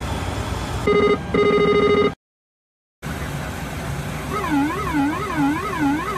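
ATR 72-600 cockpit aural warnings: the overspeed warning sounds about a second in as a steady tone, broken once and lasting about a second. After a short gap, the pitch trim 'whooler' starts, a warbling tone that rises and falls about twice a second, over steady cockpit background noise.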